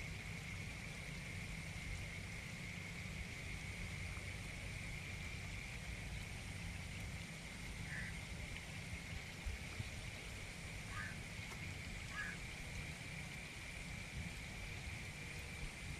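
Steady rain falling on a puddle of standing water, an even patter with a constant high-pitched hum underneath and three brief chirps in the second half.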